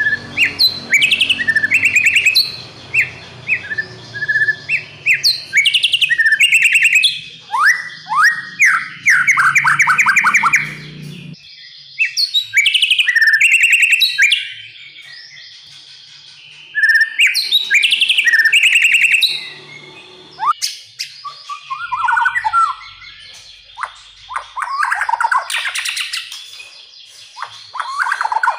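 White-rumped shama (murai batu) singing a long run of loud, varied phrases: rapid repeated notes, whistles and trills, broken by a few short pauses.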